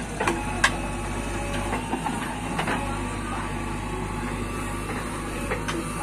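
JCB 3CX backhoe loader's diesel engine running steadily as the backhoe arm swings over a trench and the bucket is lowered in, with a few sharp knocks, two close together about half a second in.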